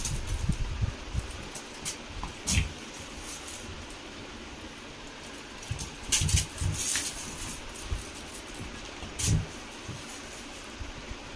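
A kitten playing roughly on a padded bed cover: a few sharp crinkles of a thin plastic bag about two and a half, six to seven and nine seconds in, with soft thumps of its body and paws, over a steady background hiss.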